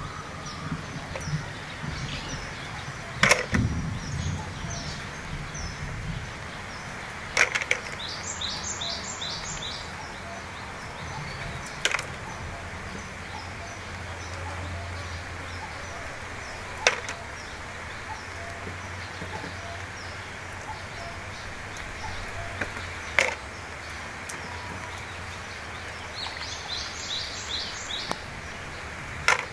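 Outdoor background with a small bird chirping in two quick runs of rapid high calls, and a few short sharp clicks or swishes spaced several seconds apart.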